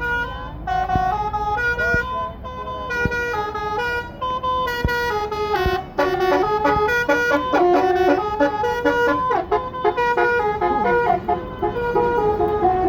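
Bus basuri telolet horn, a multi-tone air horn, playing a tune: a quick run of held notes that step up and down, often several sounding together.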